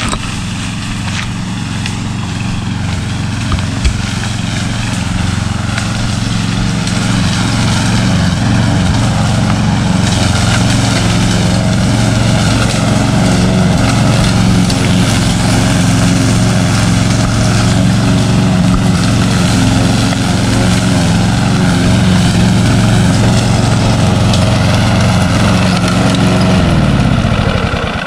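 Husqvarna 6021P push mower's 149cc Kohler single-cylinder engine running steadily while cutting tall grass, growing louder as it comes closer. Near the end the engine is shut off and winds down.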